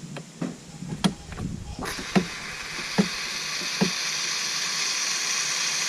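A few sharp knocks and clicks, then about two seconds in, garden-hose water starts spraying through the mower deck's wash port with a steady hiss that builds and keeps running.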